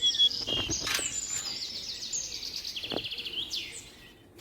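Small songbirds chirping in quick high-pitched trills of repeated notes, with a few sharp clicks among them; the calls fade away near the end.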